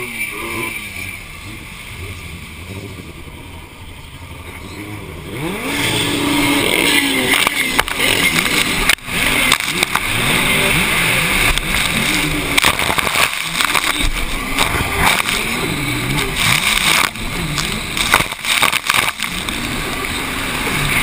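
Racing jet ski engines idling and blipping on the start line, then about five and a half seconds in, the race starts and the rider's own ski runs at full throttle. From then on, engine noise, wind on the helmet microphone and water spray run together, with repeated sharp slaps as the hull hits the chop.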